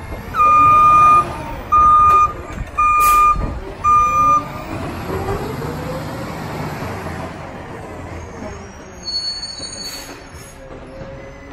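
A Peterbilt 520 McNeilus ZR garbage truck's engine runs as the truck pulls away. Four loud, steady alarm beeps sound in the first few seconds. Short air hisses come about three seconds in and again near the end.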